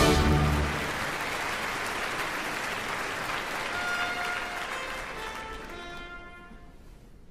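Theatre audience applauding after the orchestra's closing chord. The applause fades away over several seconds, with a few faint held orchestral notes under it toward the end.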